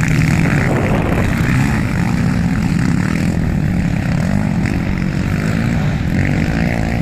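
ATV (quad bike) engines running loudly and steadily.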